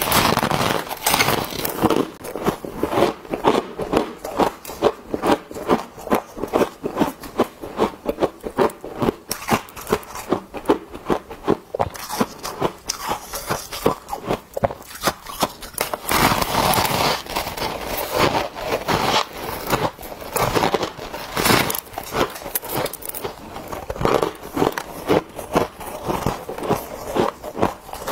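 Close-miked crunching of refrozen freezer frost being bitten off a block and chewed: a dense run of sharp, crackling crunches, several a second, with a few longer crunching stretches.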